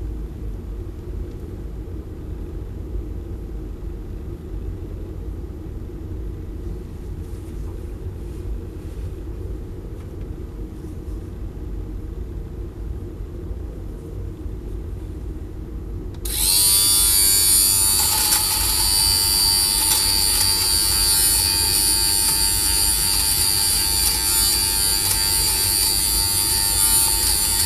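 Xiaomi Mijia portable lint remover switched on about two-thirds of the way in: its small motor spins up at once into a loud, steady high whine as the cutter head runs over the fabric. Before that only a low steady hum is heard.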